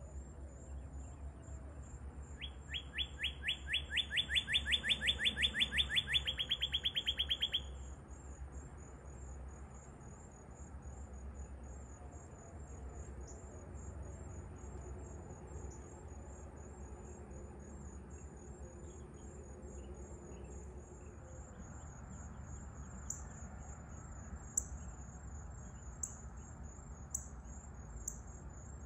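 Northern cardinal singing one long, rapid series of down-slurred whistles, about six a second, that swells over some five seconds and then stops. Near the end come sharp single chip notes about every second and a half. A steady high insect trill and a low rumble run underneath.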